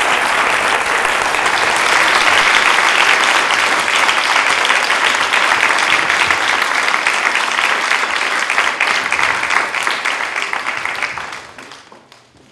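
Audience applauding steadily at the end of a talk, the clapping fading out near the end.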